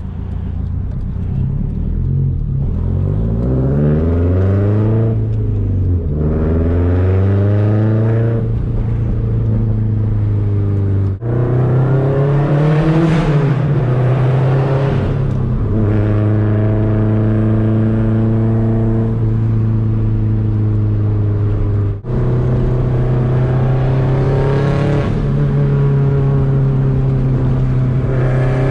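Straight-piped 2004 Subaru WRX STI's turbocharged 2.5-litre flat-four exhaust, heard from inside the cabin, rising in pitch as the car accelerates. It cuts out sharply twice at gear changes and holds a steady drone between pulls.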